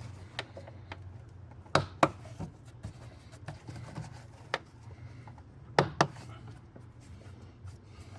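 Air filter housing latch clamps being snapped shut by hand. There are two sharp double clicks about four seconds apart, with lighter ticks of handling between them.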